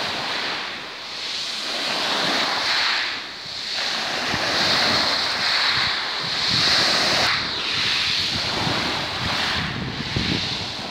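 Small sea waves breaking and washing over a pebble shore, the surf swelling and falling back every two to three seconds. Wind gusts on the microphone add a low, uneven rumble in the second half.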